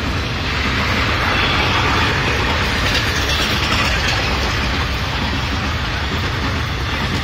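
ICF passenger coaches of an express train rolling past: a loud, steady rush and rumble of steel wheels on the rails.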